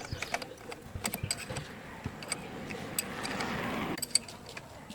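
Workshop handling noise: scattered metallic clicks and knocks, with a noisy swell lasting about a second past the middle and one sharp knock near the end.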